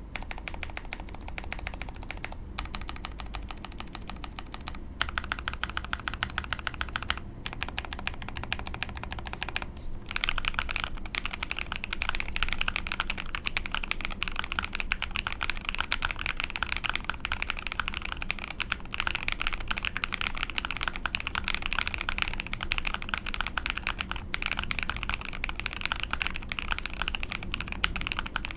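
Fast, continuous typing on an Ai03 Polaris mechanical keyboard with lubed Lavender linear switches on a POM plate and ePBT keycaps. A few brief pauses fall in the first ten seconds; about a third of the way in the typing becomes denser and louder and carries on unbroken.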